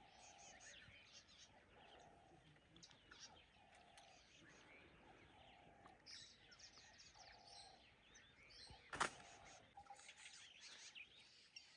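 Faint birdsong in the bush: a short low note repeating about once every three-quarters of a second, with quick high chirps over it. A single sharp click sounds about nine seconds in.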